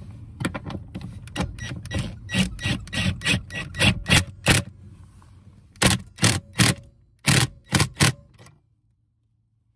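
Ryobi 18V One+ cordless impact wrench fired in a string of short trigger bursts, about two to three a second, hammering a bolt and washer down tight. The bursts stop a little over eight seconds in.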